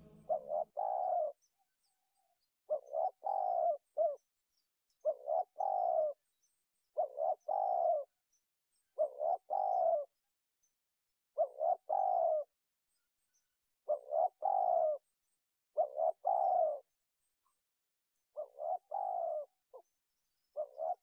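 A dove cooing over and over, about one call every two seconds. Each call is a short note followed by a longer one.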